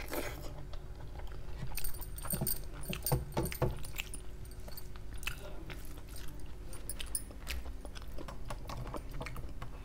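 Close-up chewing and mouth sounds of someone eating rice and curry by hand, with scattered wet clicks and light metallic jingles from bangles and fingers against a steel plate.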